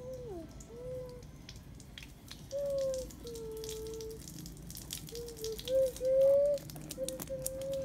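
Rain water dripping and pattering, with many small scattered ticks. Over it comes a string of short, clear held tones at changing pitches, sliding from one note to the next; these are the loudest sounds.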